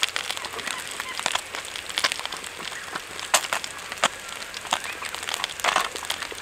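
Close-up mouth sounds of someone eating a piece of cooked fish by hand: scattered short wet clicks and smacks of chewing, with one longer, louder rasping sound shortly before the end.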